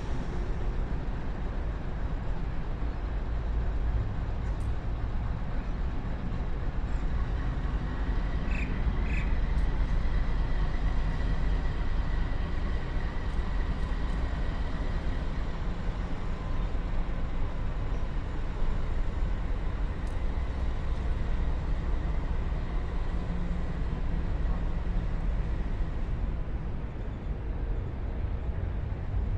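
Pacific National NR-class diesel-electric locomotive running at low speed as it moves away with a freight train, a steady low rumble with faint steady high tones above it. Two short high chirps sound about nine seconds in.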